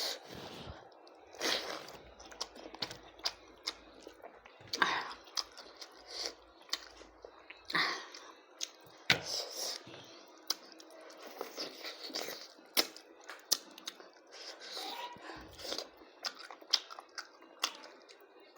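A person eating goat lung curry and rice at close range: chewing with irregular mouth clicks and lip smacks, and a few louder breaths or smacks spread through.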